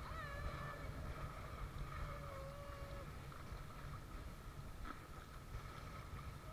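Rumble of wind and water buffeting an action camera's microphone on a banana boat out on the sea, with a thin steady hum underneath. In the first few seconds a brief held, voice-like call sounds over it.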